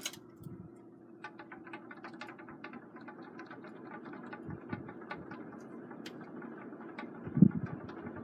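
2002 Hunter Mission ceiling fan running on high: a steady hum under a rapid, irregular clicking rattle that sounds like bamboo sticks, the noise that has the owner taking the fan down. A few low knocks near the end.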